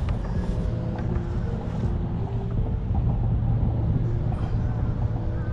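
Wind rumbling steadily on the microphone, with water lapping against the hull of a plastic sit-on-top kayak.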